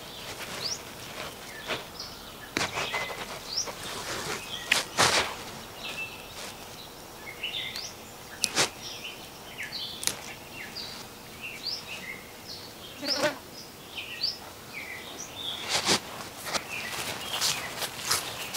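Birds calling in short, scattered chirps over a faint outdoor hiss, with sharp crackling rustles of leafy stems being handled now and then, the loudest about five seconds in and near the end.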